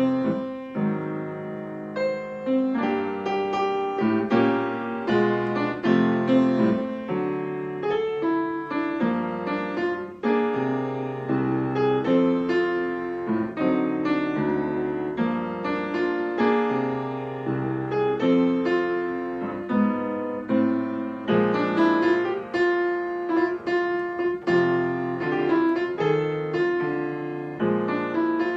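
Piano music: chords in the low register under a melody line, played continuously.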